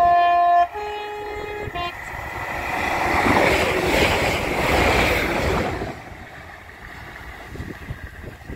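Transport for Wales Class 197 diesel multiple unit sounding its two-tone horn: a loud high note, a lower note, and a short high note again. It then passes close at speed, its rushing rumble swelling to a peak and fading away over about four seconds.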